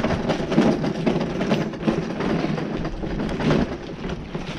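Bicycle being ridden along a street, rattling and clattering irregularly over the road surface, with wind rumbling on the microphone.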